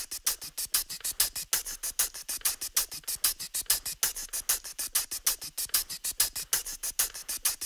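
Live-looped beatbox music: a fast, even run of crisp, hissy hi-hat ticks with almost no bass underneath.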